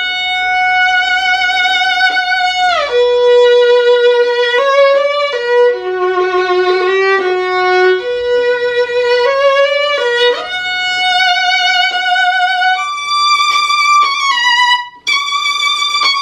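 Music: a violin playing a melody of long held notes with vibrato, sliding between pitches.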